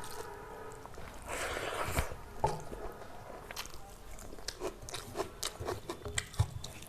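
A person eating close to the microphone: biting and chewing with crunchy sounds. It begins with a swell of rustling noise ending in a sharp click, then a run of many short, crisp crunches.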